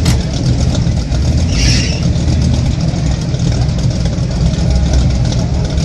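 Ford Maverick's engine idling with a steady, deep rumble. A brief hiss comes about a second and a half in.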